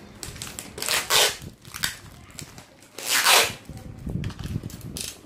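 Packaging being handled: two brief crinkling rustles, about a second in and about three seconds in, with quieter rustling and handling noises between.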